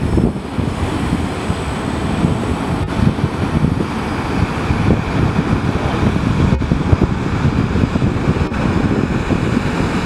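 Wind buffeting the microphone in a steady low rumble, over the engines and rushing bow wash of the fast workboat SC Amethyst passing at speed.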